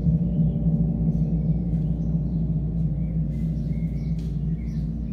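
Large gong, played with a soft mallet, ringing with a deep sustained hum of several low tones that slowly fades.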